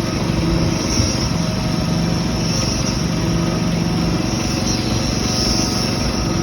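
Self-loading concrete mixer's diesel engine running steadily. A high whine swells and fades about every two seconds over the engine.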